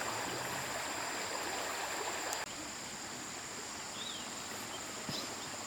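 Running water of a forest stream. About two and a half seconds in it cuts off abruptly to quieter woodland ambience: a steady high insect drone and a few faint chirps.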